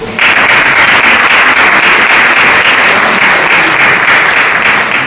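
Audience applauding, starting abruptly just after the beginning and holding steady.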